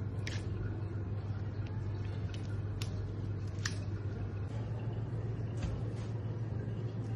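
Steady low machine hum, with a few light, sharp clicks scattered through it.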